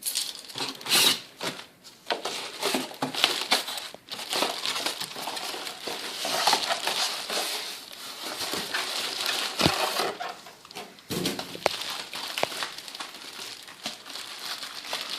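Packaging being handled and unwrapped while parts come out of the box: irregular crinkling and rustling, with a few sharp clicks and knocks.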